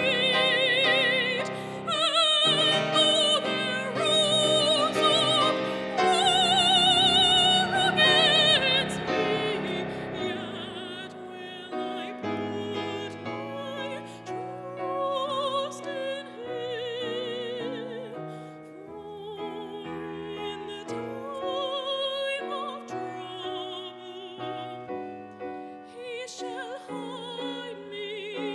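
A woman singing a classical solo with a strong vibrato, accompanied by a Mason & Hamlin grand piano. The singing is loud and full for the first nine seconds or so, then softer.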